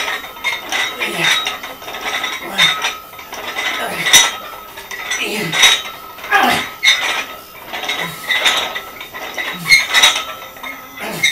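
Iron weight plates being handled on a barbell: a run of metal clanks and scrapes, roughly one a second.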